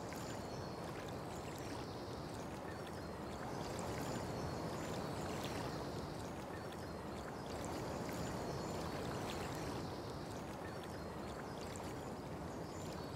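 Steady rushing outdoor ambience with faint, short high chirps scattered through it.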